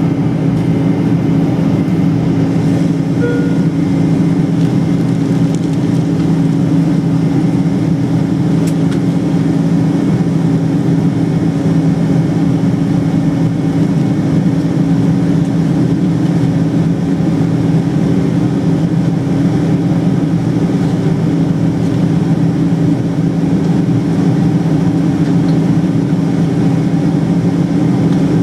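Steady cabin drone of a Boeing 747-400 in flight, heard from a seat beside the wing: the General Electric turbofan engines and the rushing airflow, with a constant low hum of two tones.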